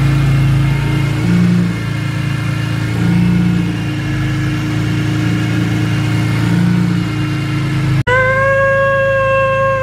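BMW E46 M3's S54 inline-six idling with a large open cone-filter intake, rising briefly with light throttle blips about a second in, around three seconds and near seven seconds. About eight seconds in it cuts off sharply and a steady high tone with overtones takes over.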